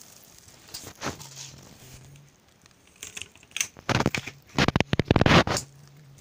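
Handling noise: hands fumbling with a plastic Super 8 film reel and its box close to the microphone, rustling and clattering. The loudest part is a burst of rapid crackling clicks from about four to five and a half seconds in.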